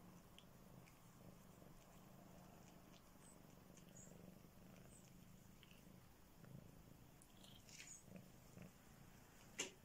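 Calico cat purring faintly and steadily as it grooms, with a few small ticks. A single sharp click near the end.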